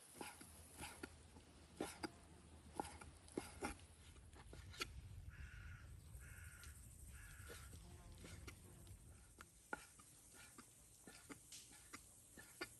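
Three faint animal calls in a row, about a second apart, a little over halfway through, among scattered light clicks and knocks.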